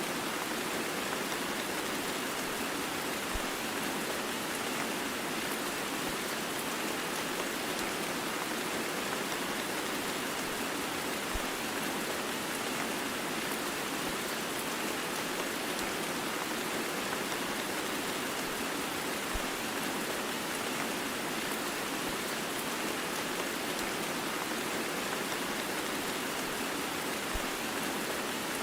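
Steady heavy rain mixed with white noise: an even, unbroken hiss with no thunder. A faint low click comes about every eight seconds.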